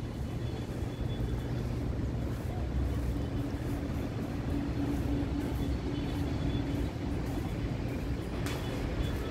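Steady low rumble of distant city traffic, with a faint steady hum in the middle of it.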